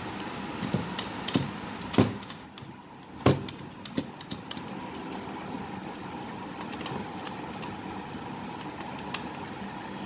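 A run of sharp clicks and two louder knocks, about two seconds and three and a quarter seconds in, as of hard objects being handled and set down, over a steady background rumble.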